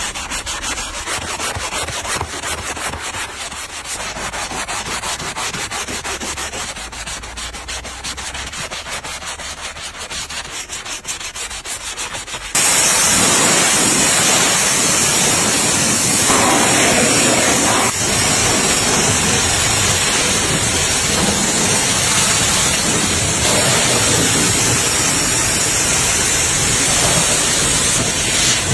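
Sanding on the car's bodywork, a rapid scratchy rubbing of even strokes. About halfway through it cuts abruptly to a louder, steady hiss.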